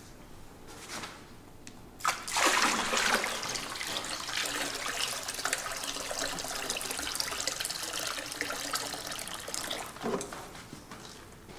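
Water poured from a plastic jerrycan into a large plastic tub of liquid, splashing steadily. It starts about two seconds in and tapers off near the end.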